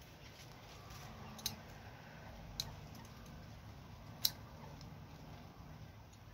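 Scissors snipping through mustard green stems: three sharp cuts, well over a second apart.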